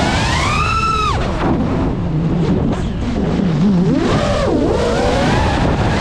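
FPV quadcopter's electric motors whining, the pitch climbing and falling with the throttle: a sharp rise that cuts off about a second in, a low rough stretch, then another rise and dip about four seconds in, over rushing air noise.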